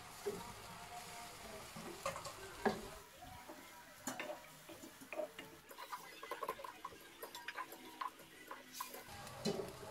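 Wooden spatula stirring and scraping chicken pieces around a stainless steel wok, with irregular clicks and knocks against the pan.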